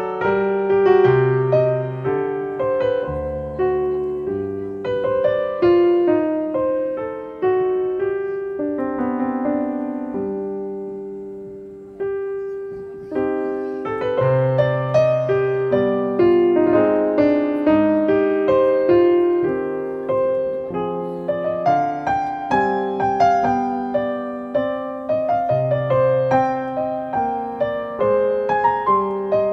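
Background solo piano music: a slow melody over chords, each note struck and left to ring. It dies away about twelve seconds in and picks up again a moment later.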